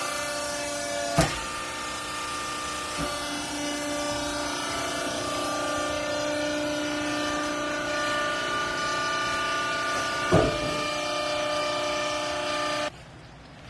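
Vertical hydraulic baler running: a steady whine from its motor and hydraulic pump, with two sharp knocks, one about a second in and one near the end. The machine sound drops off abruptly just before the end.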